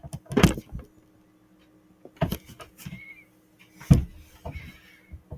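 Containers and cartons being handled and set down on refrigerator shelves: three sharp knocks about two seconds apart with lighter clicks and rustling between, over a faint steady hum.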